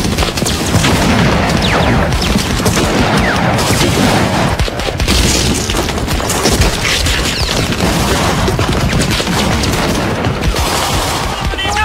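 Battle din: heavy, unbroken rifle and machine-gun fire mixed with explosions.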